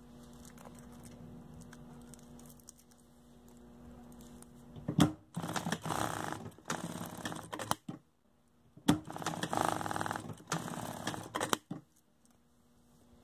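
Sewing machine stitching a velcro strip onto a fabric collar, in two runs of about three seconds each, with a short pause between them.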